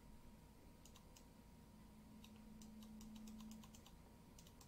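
Faint computer keyboard keystrokes: a few scattered taps, then a quicker run of them near the end.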